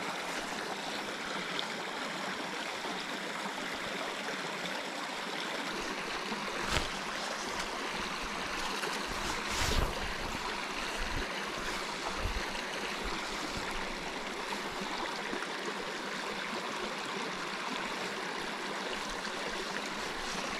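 Small mountain creek running over rocks: a steady rushing of shallow water, with a couple of brief bumps about seven and ten seconds in.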